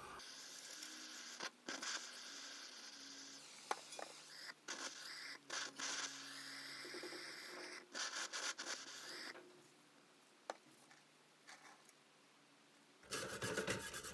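Handheld propane torch flame hissing steadily into a bee smoker to burn off caked creosote, with scattered clicks. The hiss stops about nine seconds in, and a louder scratchy rustle comes near the end.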